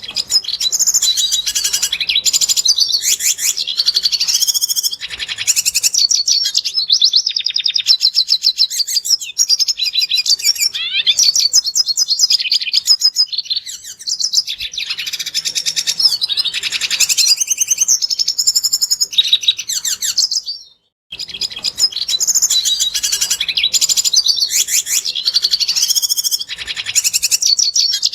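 Red siskin singing a long, fast, high-pitched twittering song with buzzy trills. It breaks off for a moment about two-thirds of the way through, then starts again.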